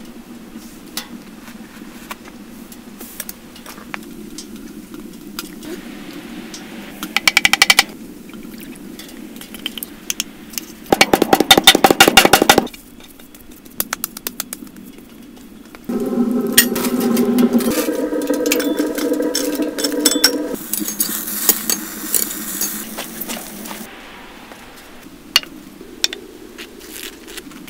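A run of food-preparation sounds without speech: two spells of rapid knocking, a steady pitched whir for about four seconds past the middle, then a high hiss.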